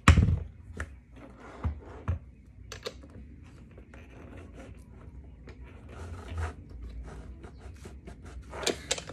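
Handling noises from a quad roller skate whose wheels are being changed: a loud knock right at the start, then lighter knocks, clicks and scraping of the wheels and axle parts being worked by hand.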